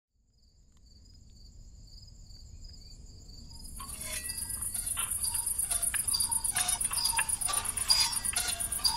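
Insects chirping in a steady, cricket-like pulsing trill, joined about three and a half seconds in by a denser, higher trill, over a low rumble that slowly grows louder. From about four seconds in, short clicks and tinkling sounds come in over the chirping.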